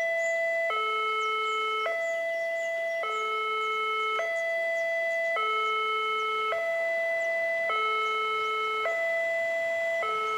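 Railway level-crossing warning alarm sounding its electronic two-tone signal, which switches between a higher and a lower chime about every 1.2 seconds, warning of an approaching train.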